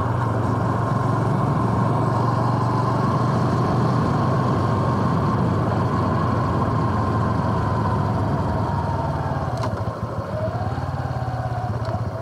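Honda Super Cub C125's 125cc air-cooled single-cylinder engine running steadily at low speed. It drops a little in level about ten seconds in.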